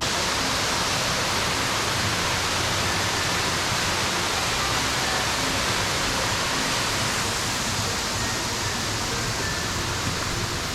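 Steady, dense rush of falling water from an 80-foot waterfall, starting abruptly.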